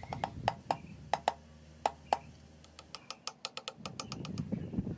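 Hammer striking a wooden block laid over the wedges, driving the cross wedges into the kerf of a hardwood axe handle in the axe eye: a series of sharp wooden knocks, then a quicker run of lighter taps about three seconds in.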